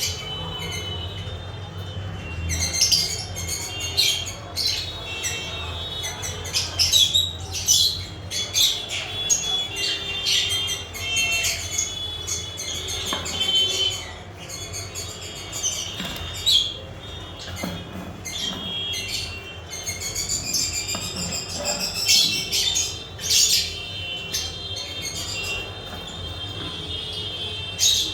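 Lovebirds chattering, with repeated shrill chirps and sharp squawks coming in clusters every second or two, over a low steady hum.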